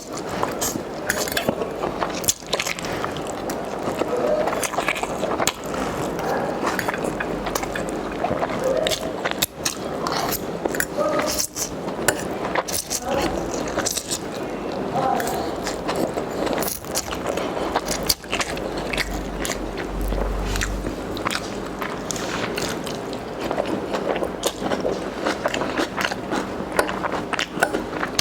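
Cooking and food-preparation sounds: a steady stream of quick clicks, clinks and scrapes of utensils and cookware, over a continuous background.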